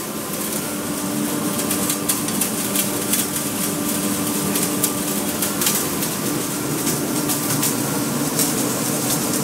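Biomass sawdust burner running: a steady mechanical hum with a rushing flame, dotted with many short sharp ticks.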